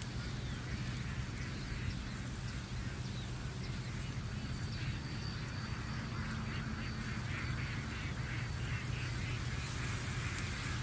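A bird calling in a quick series of short notes, about three a second, starting about halfway through, over a steady low hum.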